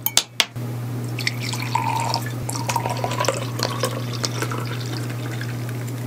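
Beer poured from a glass bottle into a drinking glass, the liquid splashing and fizzing as the glass fills. A few sharp clicks come right at the start.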